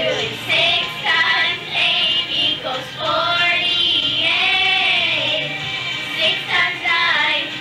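Two young girls singing a song together into a microphone, over recorded backing music from a boombox.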